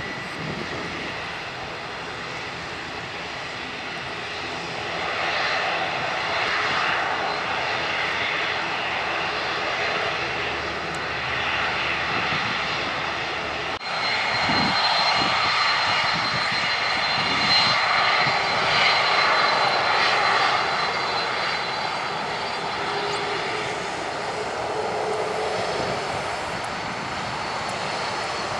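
A twin-engine ATR turboprop airliner's engines and propellers running as it taxis. About halfway through, the sound gives way to the twin turbofans of a UPS Boeing 767-300F freighter rolling on the runway: a steady jet rumble with a thin high whine.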